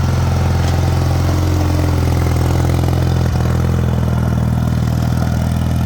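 Gehl 5600 skid steer's engine running at a steady speed, with one faint click a little past halfway.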